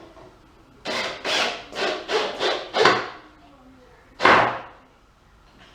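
Knocking on wood, with about five knocks roughly two a second and then one louder knock, as a pool table's wooden skirt board is worked into place.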